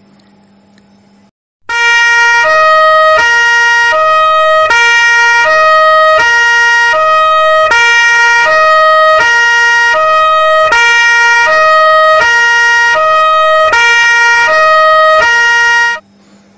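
Two-tone fire engine siren alternating between a high and a low note, about one change every three-quarters of a second. It starts about one and a half seconds in and cuts off shortly before the end.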